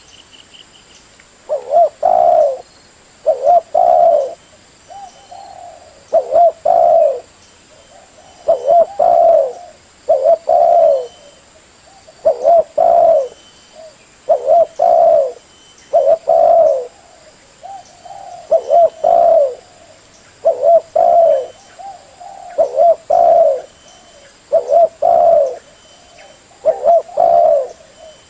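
Spotted dove cooing in short phrases of two or three low coos, repeated about every two seconds: a lure call (suara pikat) used to draw wild spotted doves in.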